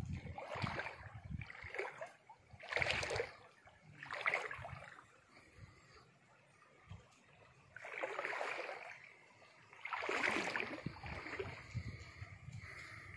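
Shallow stream water sloshing and splashing in about five separate bursts of about a second each, with quieter gaps between.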